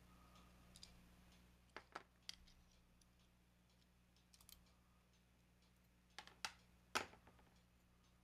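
Small metallic clicks and taps of a diecast toy car being handled as its base plate is prised off the body with a small screwdriver. The clicks come in a few scattered groups, and the loudest is about seven seconds in.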